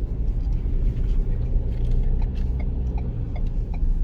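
Steady low road rumble of a car being driven, heard from inside the cabin.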